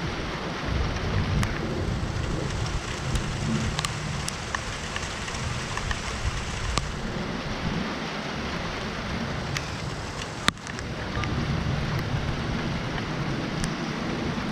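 Heavy rain falling steadily, with a few single drops ticking close by and a sharp click about ten seconds in. A low rumble of thunder swells and fades underneath.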